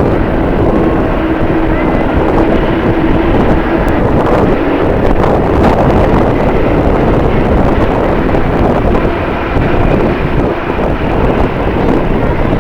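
Strong wind buffeting the microphone, loud throughout, with a jet airliner's engines running underneath.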